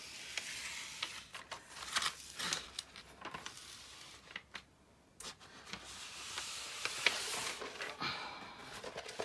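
Plastic release film rustling and crinkling as it is peeled back from the sticky face of a rolled diamond painting canvas and the canvas is unrolled, with many small crackles and a short pause about four and a half seconds in.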